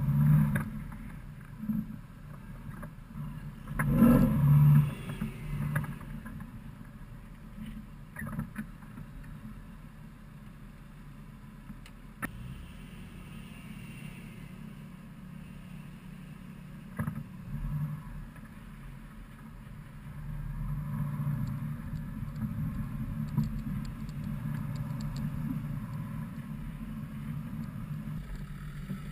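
Off-road SUV crawling up a rutted mud track on a tow strap behind another 4x4: a low steady engine hum, with a cluster of loud knocks and thumps about four seconds in and a few lighter bumps later. The engine gets louder from about twenty seconds in.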